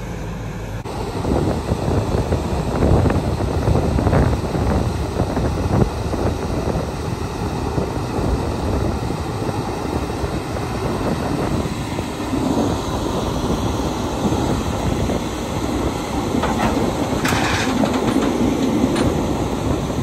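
New Holland CR Revelation Twin Rotor combine's diesel engine running steadily, with a few clunks in the first seconds as its feeder house takes up the MacDon FD135 draper header from its trailer.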